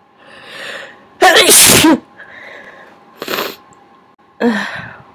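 A person sneezing, induced by tickling the nose with a rolled-up piece of paper towel. A rising gasping in-breath leads into one big, wet, voiced sneeze, the loudest sound. Another breath follows, then two shorter sneeze bursts near the end.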